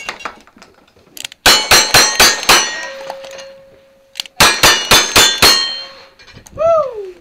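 Ten gunshots in two fast strings of five, about a quarter-second apart with a short pause between the strings, each followed by steel targets clanging and ringing on. A short falling voice-like sound comes near the end.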